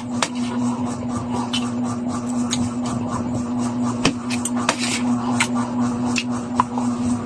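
Metal spoon and fork clinking and scraping against a plate as rice and afritada are mixed and scooped, in short irregular clicks. A steady low hum runs underneath.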